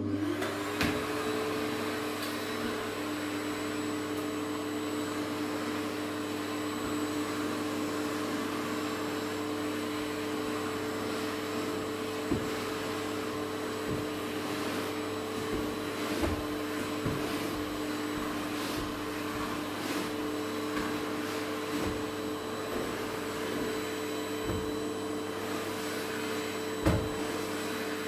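Canister vacuum cleaner switched on, its motor whine rising to speed within the first second and then running steadily, with a few light knocks as the nozzle is worked across the floor and sofa.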